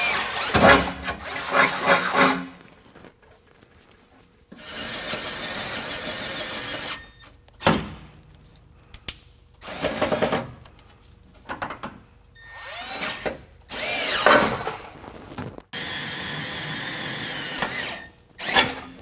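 Cordless drill with a pilot bit boring pilot holes into the steel cross member and bracket under a pickup's bed, in about six separate runs of a few seconds each with short pauses between. The motor's pitch rises and falls as the trigger is squeezed and eased while the bit cuts through the steel.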